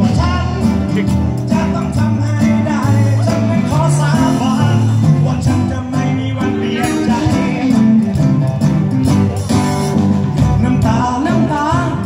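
Live band playing a Thai song, with guitars over a drum kit and hand percussion.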